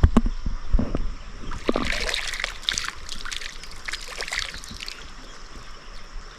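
Shallow river water splashing and trickling as feet are washed by hand, a run of splashes in the first five seconds that settles to the quiet flow of the water.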